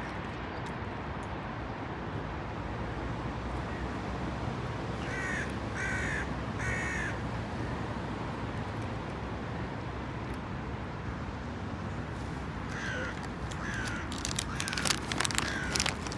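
A bird calling over a steady background hiss: three calls in quick succession about five seconds in, then four shorter calls near the end, with a few sharp clicks at the very end.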